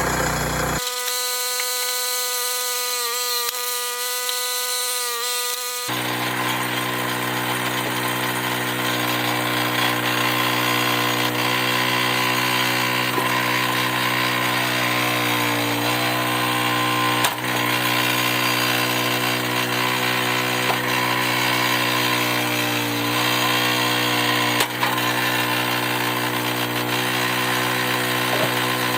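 Log splitter's engine running steadily, its pitch dipping briefly a few times, with two sharp knocks in the second half.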